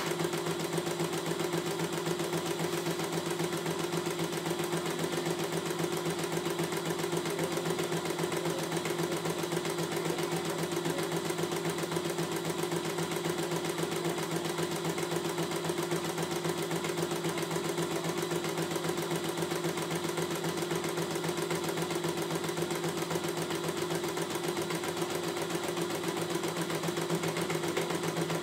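CNY E900 computerized embroidery machine stitching out a design, its needle running at a fast, even rate. The sound is steady throughout, with no pauses.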